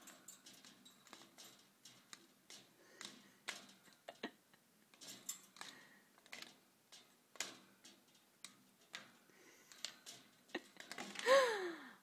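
Budgie handling a piece of cardboard on its perch: faint, irregular light clicks and rustles of beak and claws on cardboard, perch and cage wire.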